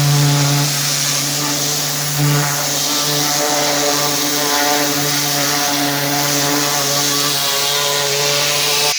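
Pressure washer running steadily under load: the engine's even drone with the high hiss of the water jet spraying concrete.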